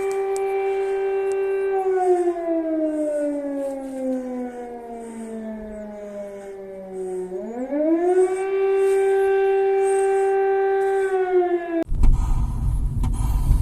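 Air-raid siren sounding an air-raid alert: a steady wail that slides down in pitch over several seconds, climbs back up and holds, then cuts off abruptly near the end, giving way to a loud low rumble.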